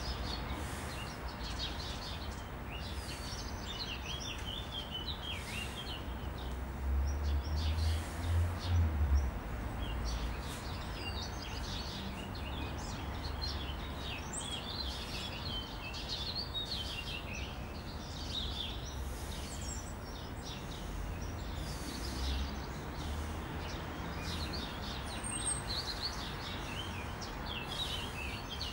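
Birds chirping and singing outdoors, many short calls overlapping, over a steady low rumble that swells briefly about seven to nine seconds in.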